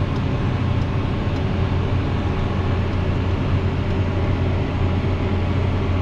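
Tractor engine running steadily, heard from inside the cab as an even low drone.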